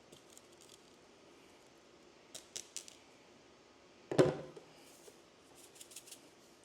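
Handling noises from a cabin air filter's charcoal layer as it is worked to get the charcoal pieces out. A quick cluster of light clicks comes first, then one loud knock a little past four seconds in, then a few faint clicks near the end.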